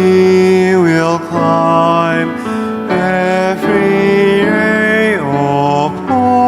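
A school choir singing in harmony, holding sustained notes that move in steps and slide down between phrases.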